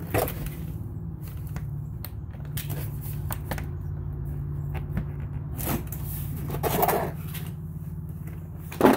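Hard plastic prop panels and their plastic clips being worked by hand: a few sharp plastic clacks and knocks, the loudest near the end, with small ticks between, over a steady low hum.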